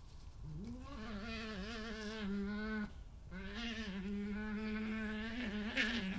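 European badgers in a territorial stand-off: two long, wavering growls of a few seconds each, broken by a short pause about three seconds in, the second ending in a louder, sharper cry. This is aggressive growling between a resident badger and an intruder on its patch, which the owners take to come mostly from the intruder trying to sound as scary as possible.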